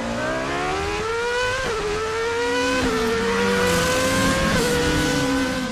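Car engine accelerating hard up through the gears: its pitch climbs steadily and drops sharply at each of three upshifts, one per second or so.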